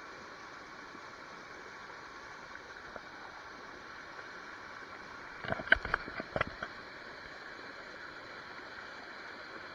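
Shallow Cane River running over rocks and gravel in a steady rush. A little past halfway, a short cluster of sharp clicks and knocks stands out above it.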